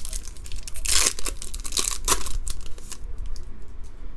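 Foil wrapper of a Bowman Draft trading-card pack being torn open by hand: a crinkly tearing with two louder rips about one and two seconds in. After about three seconds the crackling dies down to a few faint rustles as the cards are slid out.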